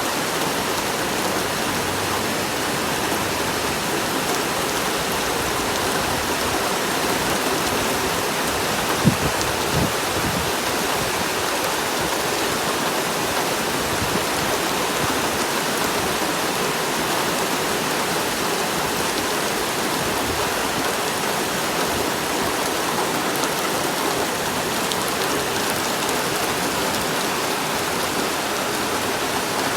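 Steady rain falling: an even hiss that does not change, with a short low thump about nine seconds in and a fainter one a second later.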